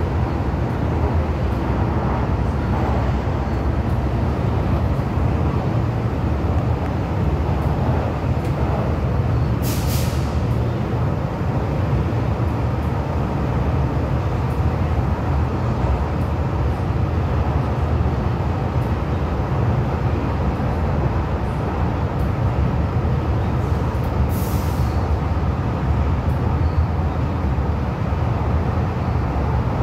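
Refurbished Metro-Cammell electric multiple-unit train on the MTR East Rail Line running along the track, heard from on board as a steady low rumble. Two brief hisses come through, about ten seconds in and again some fourteen seconds later.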